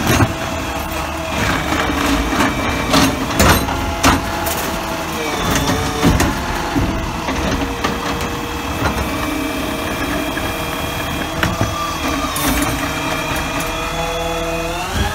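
Garbage truck's hydraulic automated side-loader arm gripping a wheeled cart, lifting it over the hopper and lowering it back, over the diesel engine running with a steady hydraulic whine. Several clanks and bangs come through the middle as the cart is dumped at the top, and the engine and hydraulics rise in pitch near the end.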